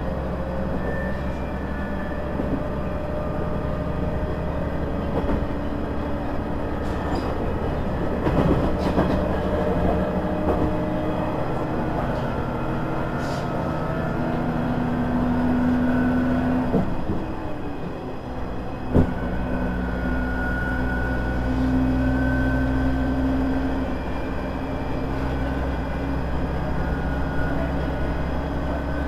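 KiHa 100 series diesel railcar running between stations: a steady diesel engine drone over wheel and rail noise, with a whine that comes and goes. Faint rail-joint clicks, and one sharp knock about 19 seconds in.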